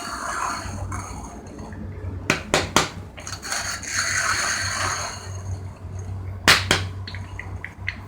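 Hand-cranked coffee grinder with 68 mm burrs working, a gritty uneven grinding noise broken by sharp clicks and knocks: three close together about two and a half seconds in and a louder one about six and a half seconds in, with small ticks near the end.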